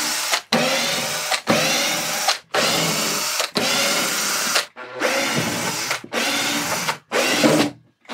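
Makita cordless drill-driver backing wood screws out of a plywood panel, run in about eight short bursts of under a second each, with brief stops between them.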